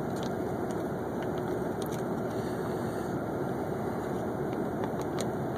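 Steady background noise with a faint low hum, and a few soft crinkles from a foil MRE retort pouch as rice and beans are squeezed out onto a foam tray.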